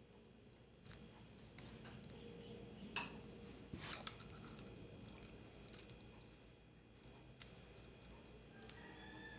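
Scattered small clicks and taps, a second or more apart: a Swatch watch and tools being handled during a battery change.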